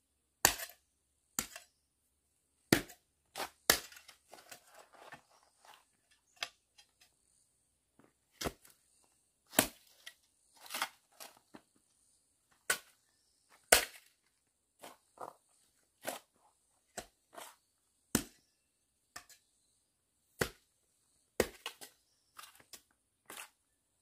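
A series of sharp knocks and cracks, irregularly spaced a second or two apart, some followed by a brief crackle.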